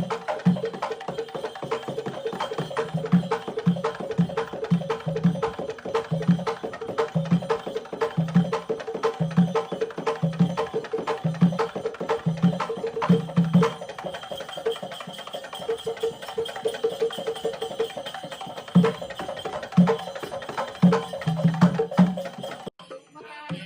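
Percussion music: steady low drum beats under sharp, quick clicking strikes, with the low beats dropping out for a few seconds in the middle. The music cuts off abruptly about a second before the end.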